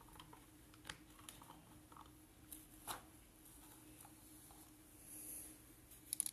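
Faint, scattered clicks and scrapes of a plastic toy excavator's arm and bucket worked by hand, digging into sand and lifting it over a toy dump truck, with a short soft hiss about five seconds in and a quick run of clicks near the end.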